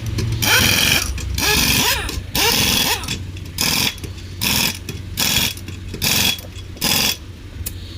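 Pneumatic impact wrench firing in short, even bursts, about one a second, while tightening a car's lug nuts after a wheel is fitted.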